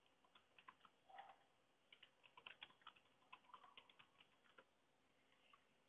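Faint computer keyboard typing: a string of quick keystrokes entering a password and then retyping it to confirm. There is a short pause about a second and a half in, and the typing stops about three-quarters of the way through.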